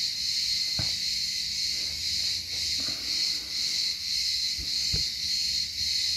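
Steady high-pitched chirring of insects, with a few faint knocks from toys being handled.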